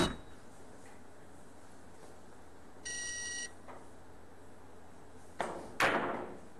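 Billiard balls clicking at the start. Around the middle there is a short electronic beep. Later a cue tip strikes the cue ball with a light click, and a moment after that comes a louder, ringing click of ball striking ball on a carom billiards table.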